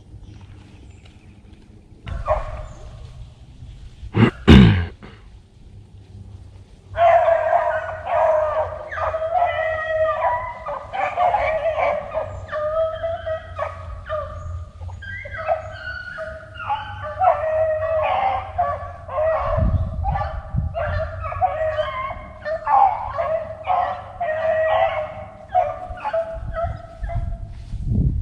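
A pack of beagles baying on a running rabbit's trail: overlapping cries that start about seven seconds in and carry on without a break. Before the pack opens up there is a single sharp, loud bang about four seconds in.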